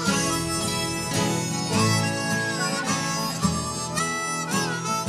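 Background country song in an instrumental break between sung verses: a harmonica plays the lead with a few bent notes over a steady accompaniment.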